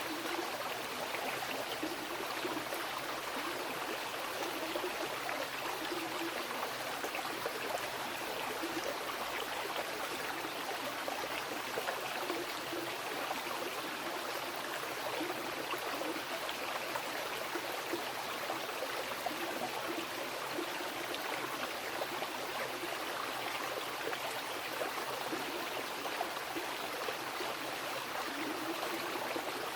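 Mountain river rushing and gurgling over rocks, a steady full rush of water with small bubbling flickers.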